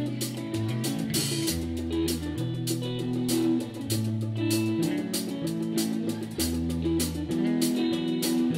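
Live rock band playing an instrumental passage: electric guitars over a bass guitar line of long held notes, with a drum kit keeping a steady beat.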